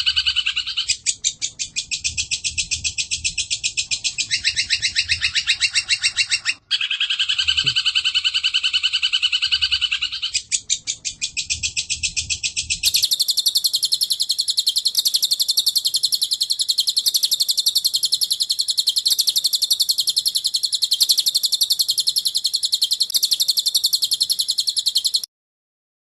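Recorded songbird masteran combining the 'kunti' call with Eurasian tree sparrows fighting: fast, pulsed trills. One trill sequence breaks off abruptly about six and a half seconds in and plays again. About thirteen seconds in, a higher, thinner unbroken trill takes over and stops suddenly about a second before the end.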